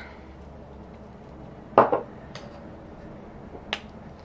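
A few small clicks and taps from a liquid foundation bottle being handled: one about two seconds in, a fainter one just after, and a sharper click near the end.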